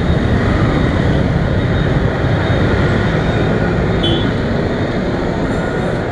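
Motorcycle engine running steadily with a dense low rumble, heard close up from the rider's camera.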